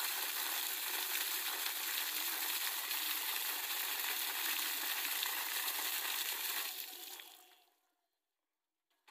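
Steady rushing, splashing noise of flowing water, fading away about seven seconds in.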